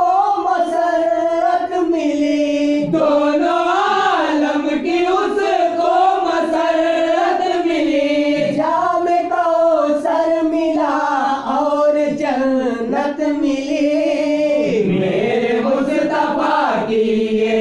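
Wordless chanting by several voices in chorus, holding a slow, unbroken melody: the vocal interlude between the verses of a naat.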